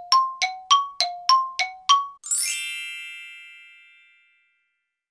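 Eight quick, bell-like struck notes alternating between a lower and a higher pitch. They are followed by a single bright, shimmering chime that rings out and fades over about two seconds.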